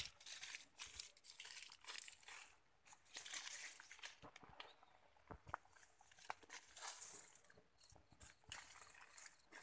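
Faint, intermittent rustling and crunching of freshly picked coffee cherries and cloth sacking being handled, with a few light clicks.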